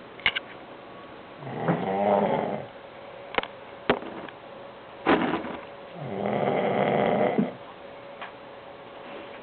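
A person snoring loud: two long snores of about a second and a half each, some four and a half seconds apart. A few short sharp clicks fall between them.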